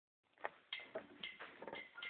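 Faint clicks, evenly spaced at about four a second.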